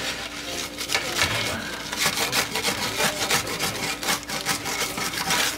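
Wooden spatula scraping and pushing a pizza crust along a wooden pizza peel in quick repeated rubbing strokes, working loose a pizza that is stuck to the peel.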